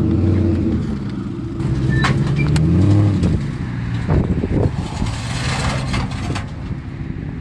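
A vehicle engine running, its pitch rising about two seconds in, with a few sharp knocks about four to five seconds in.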